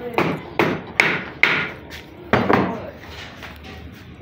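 A hammer striking metal: four sharp blows in quick succession, each with a short ring, then after a brief pause two more blows close together a little over two seconds in.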